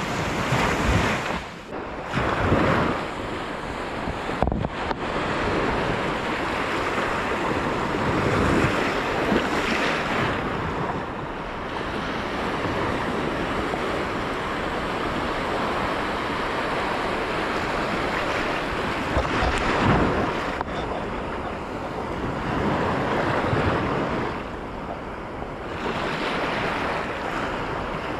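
Sea waves breaking and washing over a rocky shore, swelling and easing in surges every few seconds, with wind buffeting the microphone.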